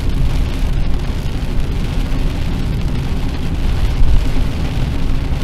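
Steady low rumble of a car driving on a rain-soaked road, heard from inside the cabin, with rain hitting the windshield and the wipers sweeping across it.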